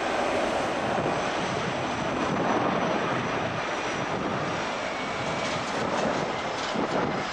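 Airbus A320-111's CFM56 jet engines running, a steady noisy roar with a hissing top.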